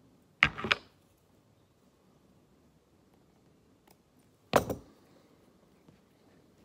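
Small line clippers snipping the tag ends off a threaded bobber stop knot tied on fishing line: two quick snips about half a second in and one more about four and a half seconds in, over faint room tone.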